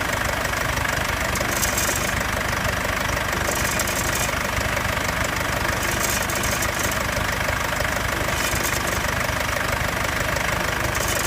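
Mercedes-Benz W205 C220 CDI four-cylinder diesel idling steadily with a light rattle and brief metallic clinks that recur about every two seconds, a noise that appears once the cold-start phase is over.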